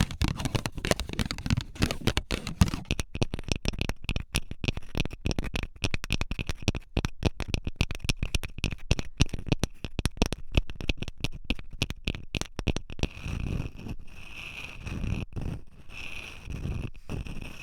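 Long fingernails tapping rapidly on a surface: a dense run of quick, crisp clicks. About thirteen seconds in, this gives way to slower, softer rubbing and scratching.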